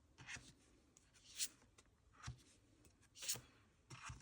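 Faint handling noises: about five short rustles and scrapes, spread evenly, as objects and packaging are moved about by hand.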